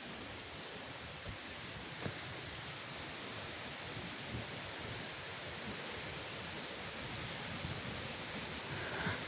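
Steady rushing of falling water from a waterfall, an even roar with no breaks.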